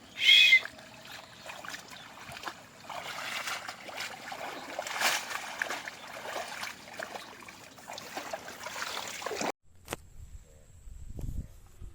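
Water splashing and trickling for several seconds, then cutting off abruptly. It follows a short, loud, high call about half a second in.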